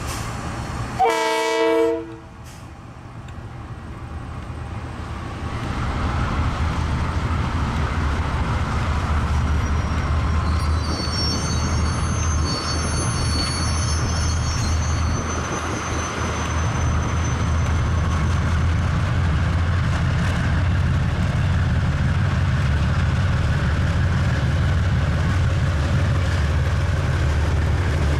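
Short horn blast, about a second long, from a KiwiRail DXC-class diesel-electric locomotive near the start. Then the low rumble of a six-locomotive DXC consist's diesel engines builds and holds steady as they pass close by, with a thin high squeal for a few seconds in the middle.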